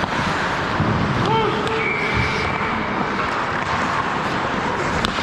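Ice hockey game play heard from the goal net: a constant hiss and scrape of skates on the ice, with stick and puck clacks and a sharp crack near the end.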